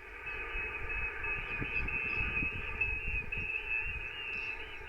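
Radio receiver hiss through a speaker, with a thin steady whistle near the top of the band, and wind rumbling on the microphone.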